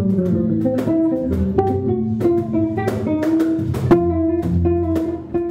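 Instrumental music of plucked guitar notes in a melodic run, starting to fade out near the end.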